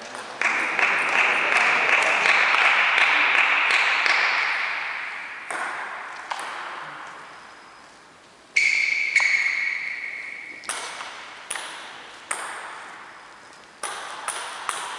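Table tennis ball bouncing, giving scattered sharp knocks with a high ringing ping in the second half, in a reverberant sports hall. In the first few seconds a loud rush of noise starts suddenly and fades away slowly.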